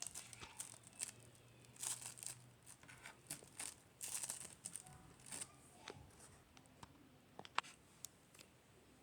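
Slime being handled, giving quick irregular crackling, popping and tearing sounds in clusters that thin out, with a few sharp clicks near the end.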